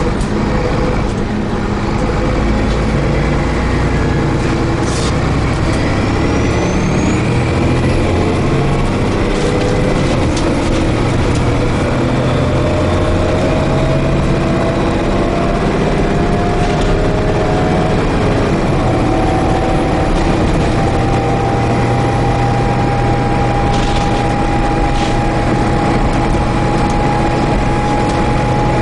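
Dennis Trident 2 double-decker bus running under way, heard from inside the saloon: a steady engine drone with a whine that climbs slowly in pitch for about fifteen seconds, steps up, then holds steady as the bus gathers speed. A few faint clicks and rattles from the body.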